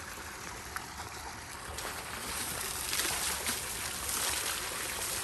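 Water splashing and trickling in an elephant's bathing pool, louder from about two seconds in, with scattered small splashes.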